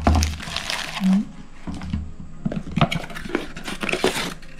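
Packaging being handled: irregular rustling and crinkling of a thin wrapping and a molded pulp tray, with a few light knocks.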